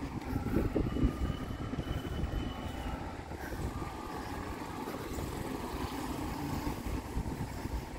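Steady low rumble of a vehicle moving along a paved street, with no clear engine note.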